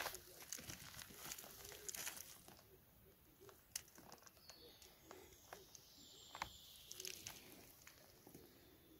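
Faint rustling and crackling of dry grass and forest-floor litter being brushed through, with scattered small snaps.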